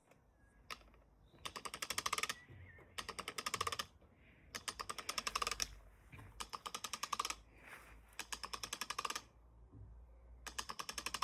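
Rapid clicking in short bursts, about six runs of quick clicks with brief pauses between them.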